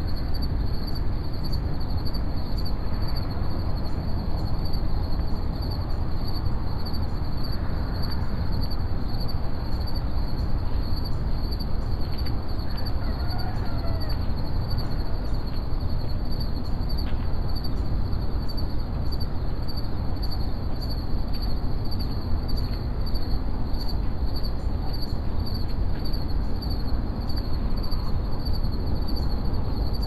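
Steady chorus of insects such as crickets, a high continuous pulsing trill, over a constant low rumble. A faint bird call slips in about halfway through.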